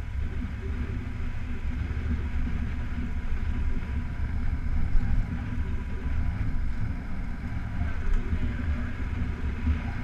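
Motorcycle running at a steady riding speed on a gravel road, a steady low rumble mixed with wind noise on the microphone.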